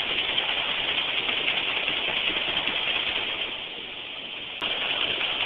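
Steady din of conveyor machinery running. It drops quieter about three and a half seconds in and comes back abruptly with a sharp click about a second later.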